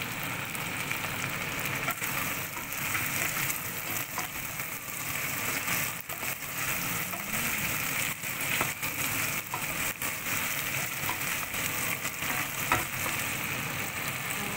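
Chicken wings and onions sizzling as they fry in oil in a stainless steel pot. A wooden spoon stirs them, with a few clicks and knocks against the pot, the loudest near the end.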